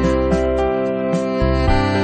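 Background music: sustained instrumental notes over a steady low bass pulse.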